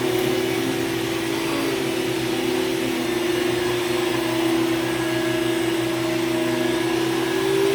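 Hoover Supremacy canister vacuum cleaner running steadily, its motor giving a constant whine over the rush of air.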